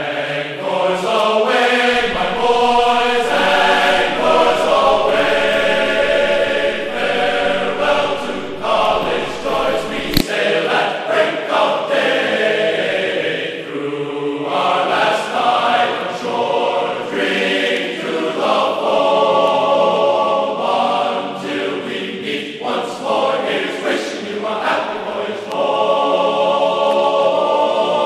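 Background music of a choir singing long, held chords.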